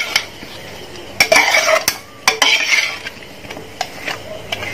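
A metal spoon scraping and clinking against a pan and dish as cooked chicken is stirred and served out, in irregular strokes with the loudest clinks about a second in and again near the middle.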